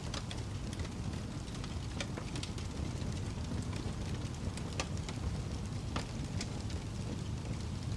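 Burning firewood crackling, with irregular sharp pops over a steady low rumble.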